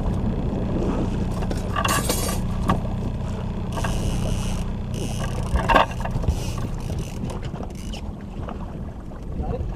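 Outboard motor running steadily at trolling speed, a low even hum, with a few brief noisy bursts and a sharp knock about six seconds in.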